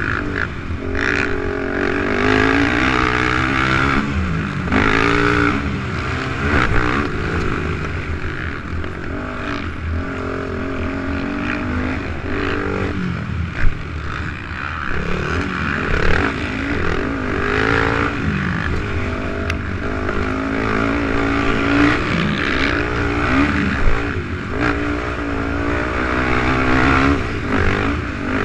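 450 production-class racing quad's single-cylinder four-stroke engine revving hard and falling off again and again as the rider shifts and works the throttle through the track, with a low rumble of wind underneath. A sharp knock stands out about halfway through.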